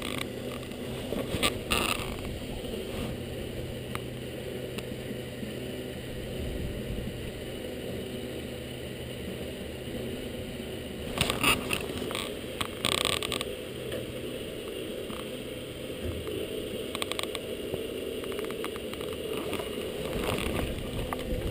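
Small boat's motor running steadily with a low hum, muffled by a waterproof camera case. A few brief clatters come about a second and a half in and again around eleven to thirteen seconds.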